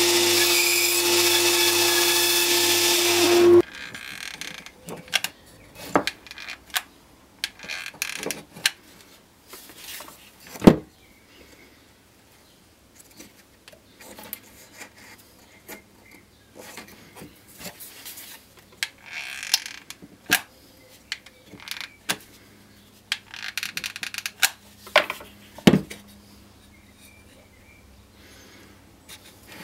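A bandsaw running with a steady hum that cuts off suddenly about three and a half seconds in. After that, quieter handling of sawn wooden pieces on a workbench: scattered knocks and clicks of wood, with light rustling of paper.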